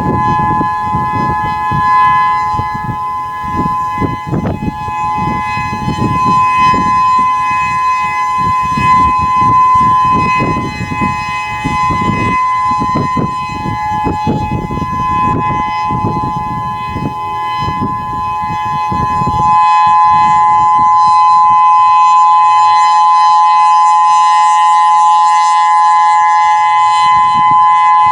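Whelen 3016 outdoor warning siren holding a steady alert tone, a loud two-note chord, during a siren test. Wind buffets the microphone with a low rumble for about the first two-thirds, then drops away.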